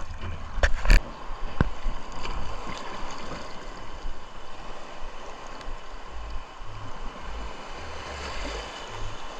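Seawater splashing and streaming off a fishing net as it is hauled by hand out of the sea at the side of a boat, with a couple of sharp knocks about a second in.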